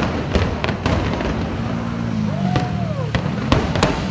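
Distant fireworks bursting: irregular sharp cracks and pops, several a second, over a steady low rumble. About two seconds in, a short pitched sound rises and falls.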